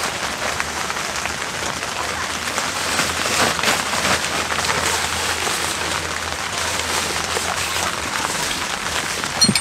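Rain pattering steadily on tent fabric, a dense even hiss, with a short sharp click near the end.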